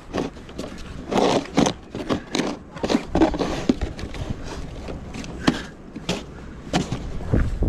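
Snow shovel scraping and crunching through snow in a series of irregular strokes, with wind rumbling on the microphone underneath.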